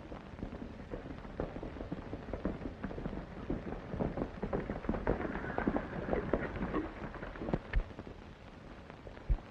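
Horses' hooves beating irregularly on dirt as a group of riders comes in, loudest in the middle, with a couple of heavier thumps near the end, over steady hiss.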